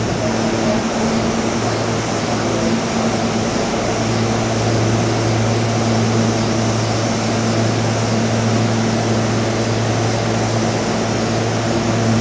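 SEPTA Silverliner V electric multiple-unit railcar standing at the platform with its air-conditioning and auxiliary equipment running: a steady low hum over an even fan-like hiss.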